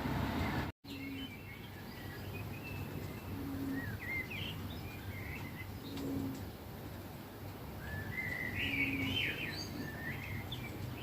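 A low, steady 'oooo' hoot, about half a second long, repeated at even spacing every two and a half seconds or so. Its maker is unidentified and hard to locate, seeming to come from everywhere. Small birds chirp and whistle over it, loudest near the end, and the sound drops out completely for an instant about a second in.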